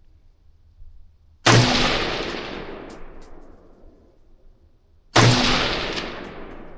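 Two gunshots about four seconds apart, each a sharp crack followed by a long echo that dies away over about two seconds.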